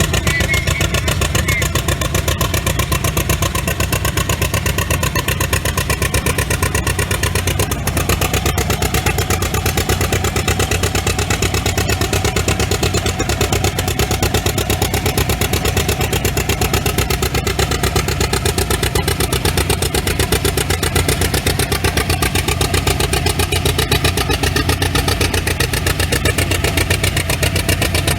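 Tractor engine running steadily with a rapid, even firing beat.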